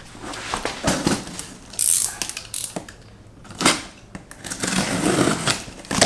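A cardboard shipping box being handled and set down on a concrete floor, with rustling, several sharp knocks and a longer scraping sound near the end as a knife is drawn through its packing tape.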